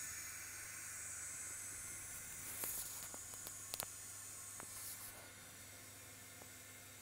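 Low steady electrical hum under a constant hiss, with a few faint clicks around the middle.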